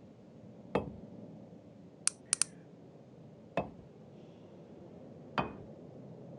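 Scattered sharp clicks: three separate knocks a couple of seconds apart, and a quick run of three thin, higher clicks about two seconds in.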